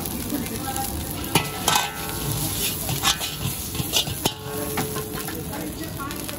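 Rice and noodles stir-frying in a large black wok: a steady sizzle, with a steel ladle stirring and scraping through the food and several sharp clanks of the ladle against the wok.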